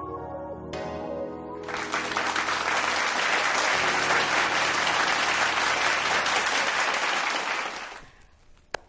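Soft sustained keyboard chords end, then applause starts about two seconds in and continues for about six seconds before fading away near the end.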